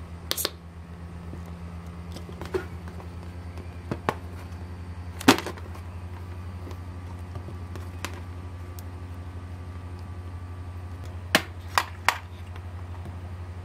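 Small plastic RC car parts and a diecast car body being handled on a wooden tabletop: scattered light clicks and knocks, the loudest about five seconds in and three quick ones near the end, over a steady low hum.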